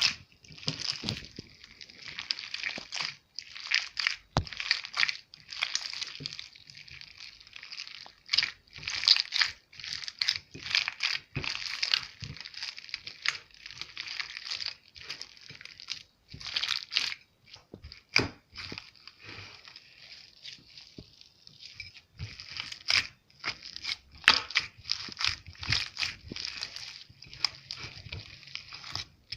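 Slime being kneaded and stretched by hand: a steady run of irregular sticky crackles, pops and squelches.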